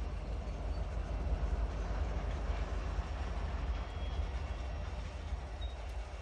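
Freight train backing slowly through a grade crossing: a steady rumble of the cars' wheels rolling on the rails.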